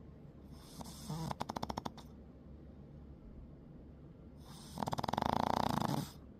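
A sleeping pet snoring: two fluttering snores, each about a second and a half long, the second one louder.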